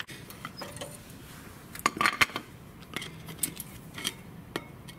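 Metal clinks and scrapes from a flat screwdriver prying brake pads loose in a disc-brake caliper bracket. A quick cluster of sharp clinks comes about two seconds in, with single clinks spaced through the rest.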